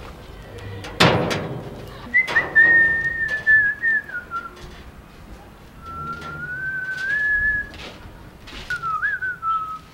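A person whistling a slow tune in three long phrases of held, gliding notes. A sharp bang about a second in, with a few fainter knocks after it.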